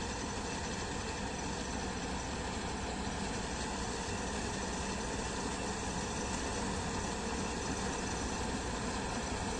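Combine harvester running steadily, a constant engine drone without change.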